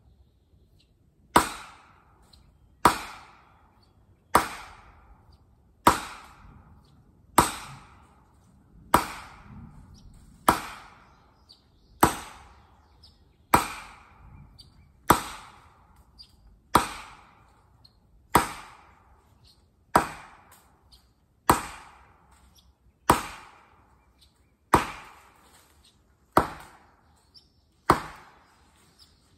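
Felling wedges in the back cut of an oak being pounded with a hammer in steady, evenly spaced blows, about one every second and a half, each a sharp strike with a short ring. The wedges are lifting the tree to tip it over.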